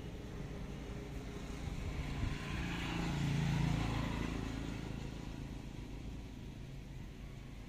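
A motor vehicle passing by, growing louder to a peak about three to four seconds in, then fading away.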